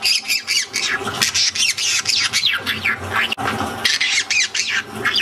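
Pet green-cheeked conure squawking, a rapid, unbroken run of short falling calls.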